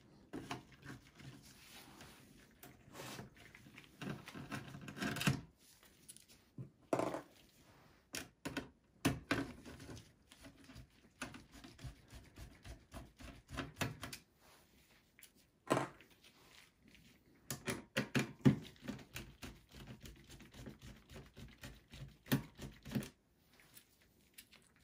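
Phillips screwdriver backing out motherboard screws in a steel desktop PC chassis: irregular clicks, taps and short scrapes of the bit and screws against the metal.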